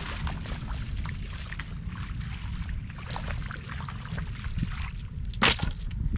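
Splashing steps through a shallow, muddy flood puddle, with wind rumbling on the microphone. About five and a half seconds in comes one short, loud splash as a bundle of bamboo fish trap is dropped into the water.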